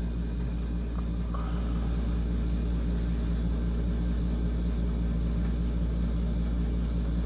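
Steady low hum and rumble, like a running motor or mains hum, with a faint click about a second in.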